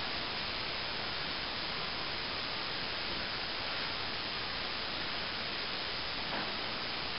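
Steady, even hiss with no distinct events; the hand work on the plaster mitre is not clearly heard.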